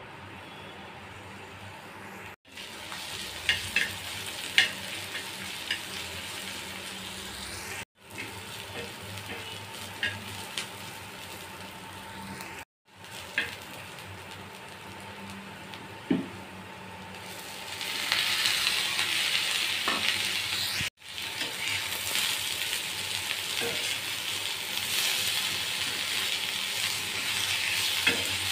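Chopped onions and green chillies, and later bitter gourd and potato slices, frying on a flat iron tawa, with a spatula stirring and scraping against the pan. The sizzle grows louder and hissier about two-thirds of the way through, and a few brief dropouts break it.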